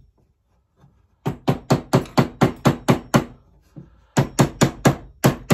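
Small mallet striking a sterling silver ring held on the bench: a quick run of sharp taps at about four a second, a short pause, then another run near the end. The blows are closing the ring's filed ends into a tight, even seam ready for soldering.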